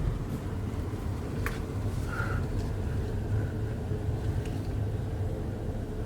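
Steady low rumble of a motor vehicle, with a few faint clicks.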